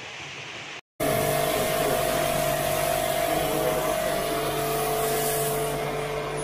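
Rain pouring steadily for under a second, then, after a sudden cut, the steady, louder hum and hiss of an electric jet-wash pump spraying water into a wall-mounted split air conditioner's indoor unit during servicing.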